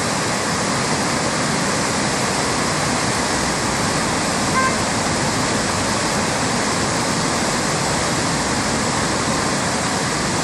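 Steady, loud rush of a river in flood, swollen by rain and snowmelt, churning through rapids and standing waves.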